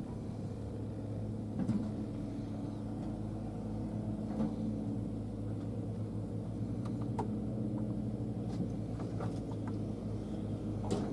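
Diesel engine of heavy earthmoving machinery running steadily, with a few faint knocks and clanks scattered through.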